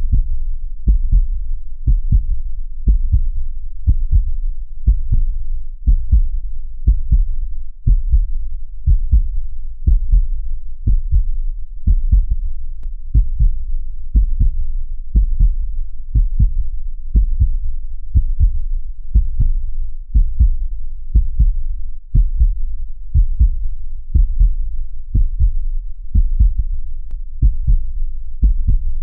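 A steady heartbeat, each beat a low double thump (lub-dub), repeating at about one beat a second.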